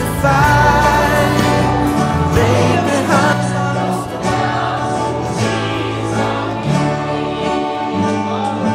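A church worship group singing a gospel song together, accompanied by acoustic guitar and a bass line.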